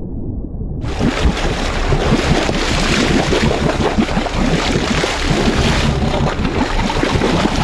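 About a second of muffled underwater rumble, then wind buffeting the microphone over rushing, splashing sea water at the surface beside a boat.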